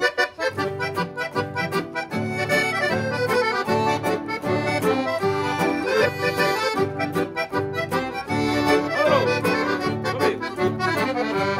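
Accordion playing the melody of an instrumental break in a gaúcho xote, with a bass line and a steady rhythmic accompaniment beneath it.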